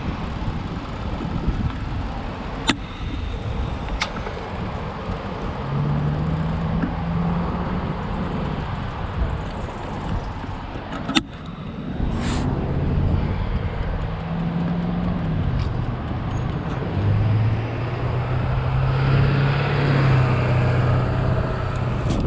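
Road traffic passing on the road alongside: car and truck engines humming and tyres on the pavement, with a few sharp clicks.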